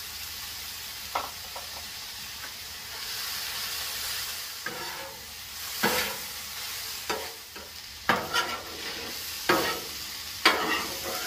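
Ground elk with onion, tomatoes and green chiles sizzling on a Blackstone steel flat-top griddle. A metal spatula scrapes and stirs through the meat, clacking against the steel plate about eight times, mostly in the second half.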